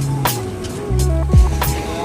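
Background music with a steady beat: deep kick drums that drop in pitch, sharp snare-like hits and held bass and melody notes.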